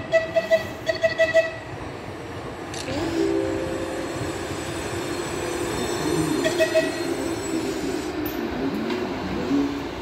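A České dráhy 'Peršing' electric locomotive hauling a passenger train past into the station. A shrill pulsing tone sounds for the first second and a half and again briefly about six and a half seconds in. From about three seconds in there is a steady hum and rumble of the locomotive and coaches rolling by.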